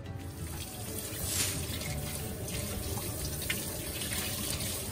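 Kitchen tap running steadily onto a celtuce stem as it is rinsed by hand in a stainless steel sink, the water splashing into the basin.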